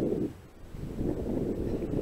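Wind buffeting the microphone: a low rumble that drops away briefly about half a second in, then picks up again.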